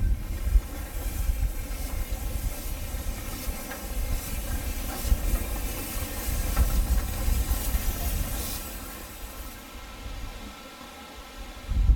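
Narrow-gauge steam tank locomotive hissing steam over a gusty low rumble. The hiss grows stronger in the middle and dies away about nine to ten seconds in.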